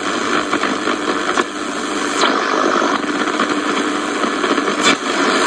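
Shortwave static and hiss from the Sony ICF-F12S portable radio's speaker as its tuning knob is turned between stations, with a few brief sweeping sounds as signals pass by.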